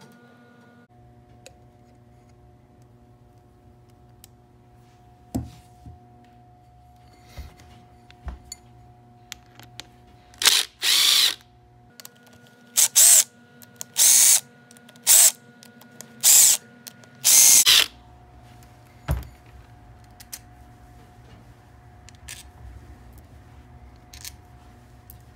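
Cordless drill with a socket adapter running the case bolts of a Vittorazi Atom80 reduction gearbox, in about eight short bursts through the middle. A few light knocks of tools and parts being handled come before and after.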